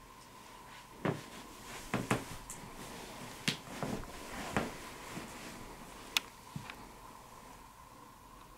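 A person getting down onto the floor and settling in under a blanket beside someone: a run of bumps, shuffles and rustles of clothing and bedding, several sharp knocks among them, over a faint steady hum.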